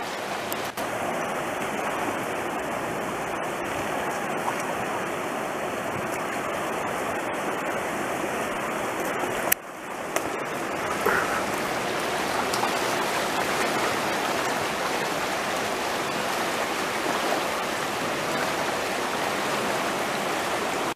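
Fast-flowing river rushing past a rocky bank in high water: a steady rush of water.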